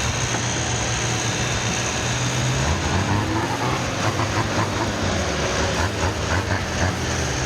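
Gasoline chainsaw engine running steadily at a low pitch, with scattered short cracks from about four seconds in.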